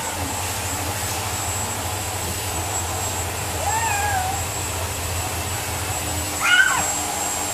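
A toddler meowing in imitation of a cat: two short, wavering meows, one about halfway through and a louder one near the end, over a steady low machine hum.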